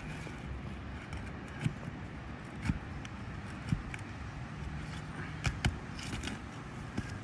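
Scattered sharp clicks and light scrapes of hand tools working under an asphalt shingle tab, pulling roofing nails, over a steady low background rumble.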